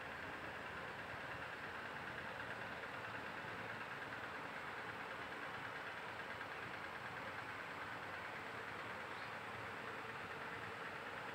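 Steady, even background noise with a faint whir and no distinct events.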